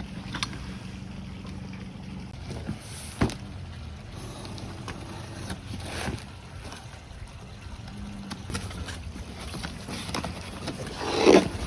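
Handling noise from opening a cardboard box: scattered knocks and scrapes, with a louder rustle near the end.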